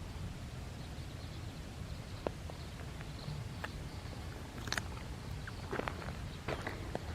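Low, steady wind rumble on the microphone with scattered crunching footsteps on stony ground, the steps coming more often near the end.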